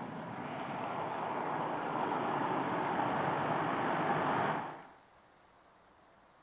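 A car approaching on an asphalt road, its tyre and engine noise growing steadily louder, then cut off abruptly about five seconds in, leaving only a faint hiss.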